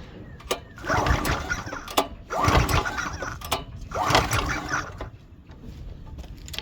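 Pressure washer's Honda engine being pull-started three times, each pull cranking it for about a second without it catching. It won't start because the oil is dry and the low-oil switch stops it.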